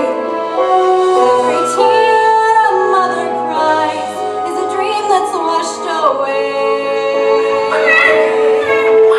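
A woman singing a slow, sad ballad over musical accompaniment, holding one long note through the last few seconds.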